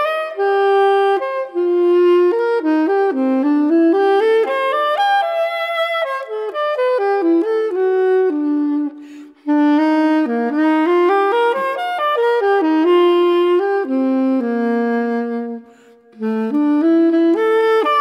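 Background music: a single melody line on a wind instrument, with no beat, pausing briefly twice.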